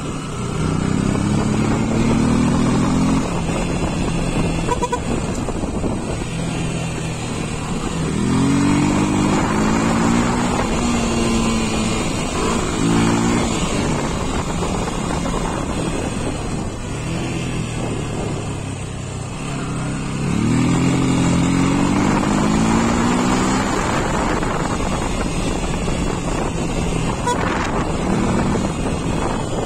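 Yamaha Fazer motorcycle engine riding at speed, its pitch rising three times as the throttle opens and falling back between as it eases off, over steady wind noise on the microphone.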